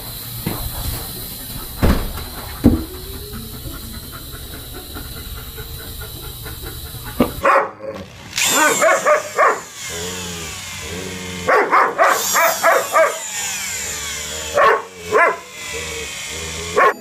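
A husky giving a series of drawn-out, wavering howl-like calls, in runs of about a second, starting about eight seconds in. Before that there is a steady hiss with a couple of knocks.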